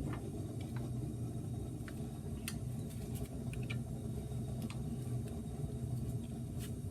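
Faint, scattered light clicks and taps of metal tools and parts being handled at the wheel hub, over a steady low background hum.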